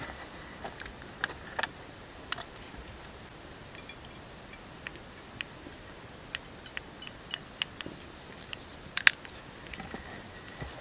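Wood cooking fire crackling: irregular sharp pops and ticks, with a louder double pop about nine seconds in.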